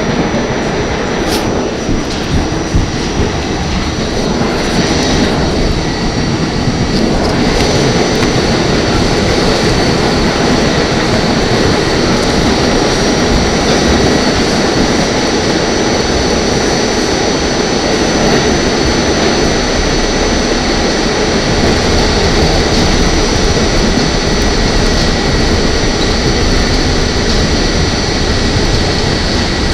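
R44 subway car running at speed, heard from inside the car: a steady roar of wheels on rail with a thin, steady high whine over it, and a couple of clicks in the first few seconds.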